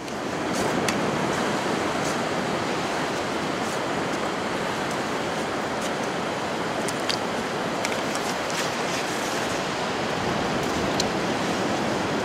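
Steady rush of surf breaking on a beach, with a few faint clicks over it.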